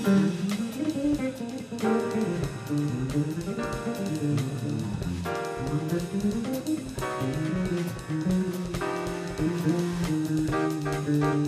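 Live jazz from a band: a five-string electric bass, plucked with the fingers, plays a busy, moving line over drum-kit cymbal strokes, with blocks of chords above it.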